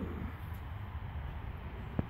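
A sleeping horse snoring: a low, rough snore fades out just after the start, followed by a quieter pause in the breathing over a steady low rumble.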